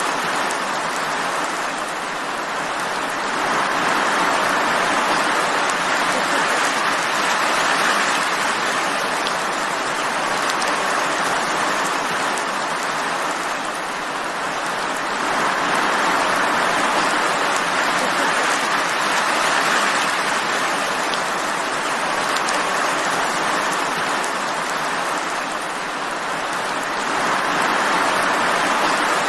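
Steady rainfall, a dense even hiss of drops that swells and eases in slow waves about every ten seconds.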